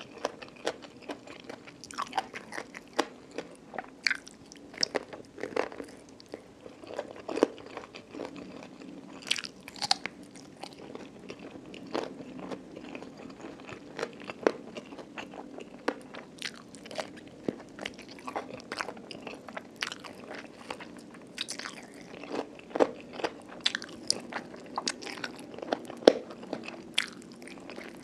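Close-miked eating: a person biting and chewing chicken feet tossed in chili dip with rice and crispy fluffy catfish, with many sharp, irregular crunches and clicks throughout.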